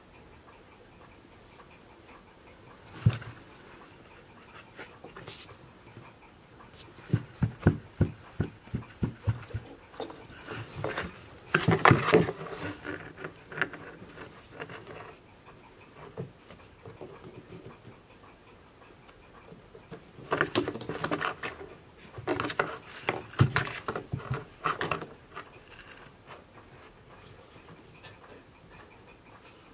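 Cats playing in a cardboard box: irregular bursts of scratching, scuffling and light knocks on the cardboard, with a quick run of clicks early on and the busiest scuffling about twelve seconds in and again a little past twenty seconds.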